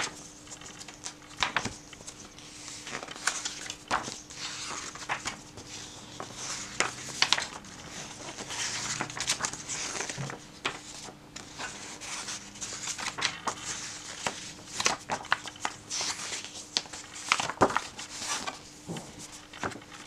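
Pages of a thin paperback picture book being turned one after another: repeated short paper rustles and flaps.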